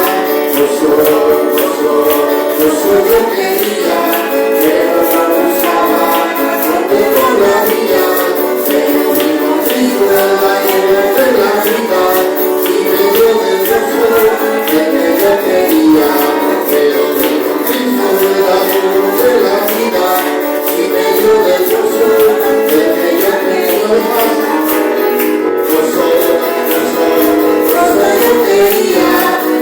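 A church congregation singing a Spanish praise hymn together, with a tambourine shaken and struck in a steady, quick beat throughout.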